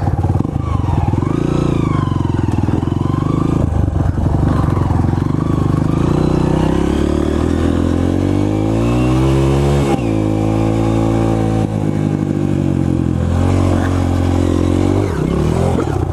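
Honda dirt bike engine heard close from the bike itself as it is ridden across the field: it runs under throttle, climbs steadily in pitch for several seconds, drops sharply about ten seconds in, then runs on steadily.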